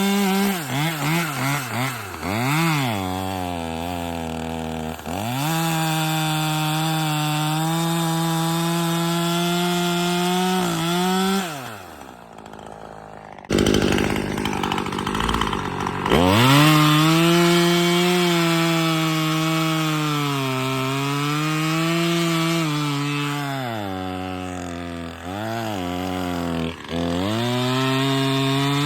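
Husqvarna T540XP Mark III two-stroke top-handle chainsaw: the throttle is blipped several times, then held wide open while it cuts wood, the pitch sagging and recovering under load. About twelve seconds in it drops off and goes quieter, a short rough noise follows, and it revs up again to cut, dipping repeatedly as the chain bites.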